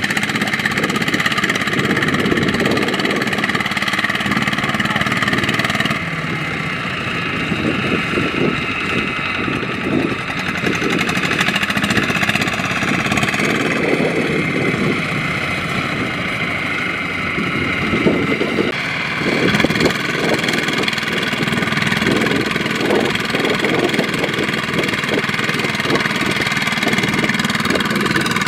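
Single-cylinder diesel engine of a two-wheel walking tractor running steadily as it pulls a loaded trailer through sticky mud. Its note shifts abruptly twice.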